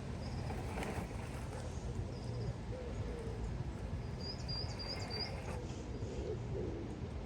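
Outdoor background with a steady low rumble, and a bird giving a quick run of four or five high chirps about four seconds in.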